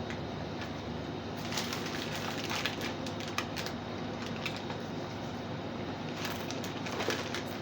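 Plastic snack packaging being handled: scattered crinkles and clicks over a steady low hum.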